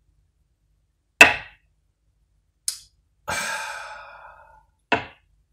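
People gasping and sighing after downing shots of strong horseradish vodka: a sharp, loud exhale about a second in, a brief light click, then a long breathy 'aah' that fades, and another short sharp exhale near the end.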